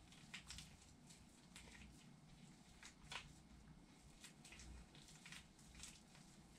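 Near silence with faint, scattered soft rustles and ticks of gloved hands rolling up a dry moldable cast sock.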